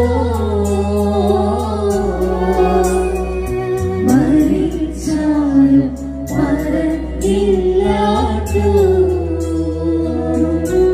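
Women singing a church hymn into microphones, amplified through a PA loudspeaker, over sustained low accompaniment notes that change every couple of seconds.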